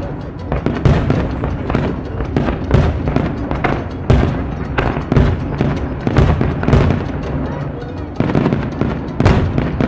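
Aerial fireworks shells bursting one after another, about a dozen sharp booms at uneven spacing, some followed by crackle, over music running beneath.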